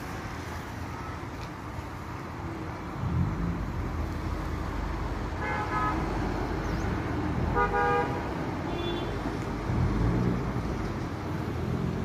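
Road traffic running steadily, with three short vehicle horn toots about halfway through and soon after.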